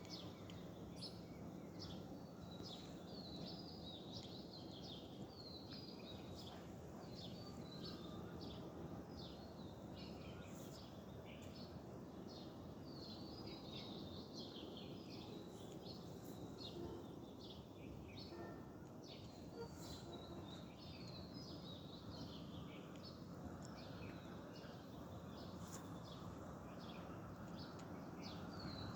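Many small birds chirping throughout, over a steady faint background hiss.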